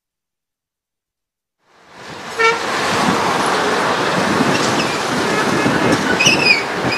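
Silence for nearly two seconds, then road traffic noise fades in with a short vehicle horn toot soon after. A brief high-pitched gliding tone comes near the end.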